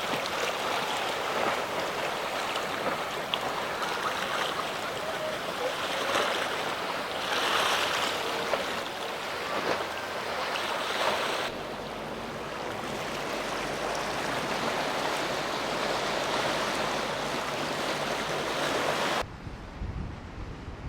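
Rushing surf and waves in a rough inlet with wind buffeting the microphone, with no clear engine tone heard. The sound changes abruptly about halfway through and drops sharply in level near the end.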